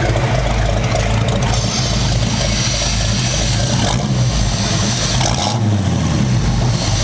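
Rebuilt V8 engine running and being revved, its exhaust note rising and falling with throttle blips. The sound comes through 8-into-2 headers and 2.5-inch pipes with a medium muffler, which gives it a deep, fairly open rumble.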